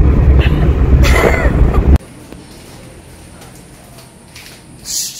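Steady low rumble of road and wind noise inside a moving car, with a brief higher sound about a second in. It cuts off abruptly about two seconds in to a quiet, hollow background with one short rustle near the end.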